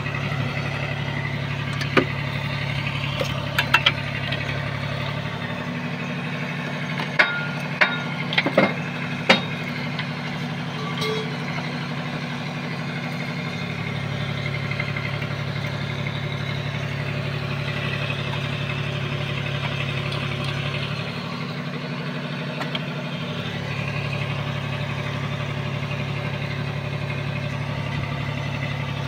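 Steady low machinery drone, like an engine running; its deepest part drops out twice for a few seconds. Several sharp clicks and taps come in the first ten seconds, from hands and a screwdriver working wires into a terminal block.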